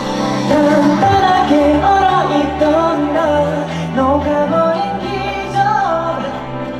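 K-pop song performed live over a loud sound system: a male vocal group singing a sliding melodic line over a pop backing track with a steady bass.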